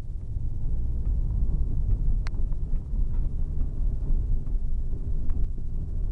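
Steady low rumble of a car moving through strong storm winds (the rear flank downdraft of a tornado), heard from inside, with a few light ticks and one sharper click about two seconds in.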